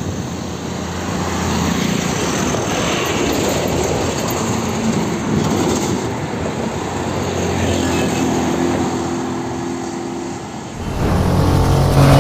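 Heavy road traffic passing: truck and bus engines droning over tyre noise. Near the end a louder, deeper engine comes in.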